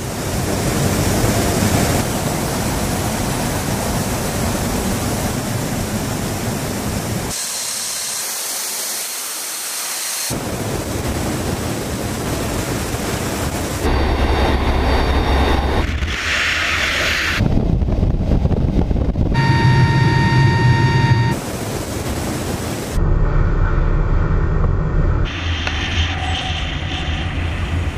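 Loud, steady rushing noise of military transport aircraft cabins and wind during parachute jumps, changing abruptly at each cut between shots. One stretch about two-thirds through carries a steady high tone over the rush.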